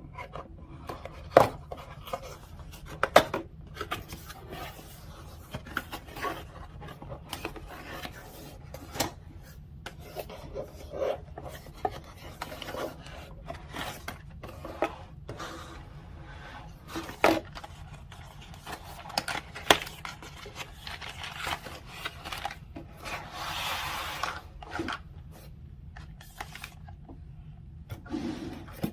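Cardboard product packaging being opened and handled: rubbing and sliding of cardboard, with sharp taps and knocks scattered throughout and a longer stretch of scraping near the end.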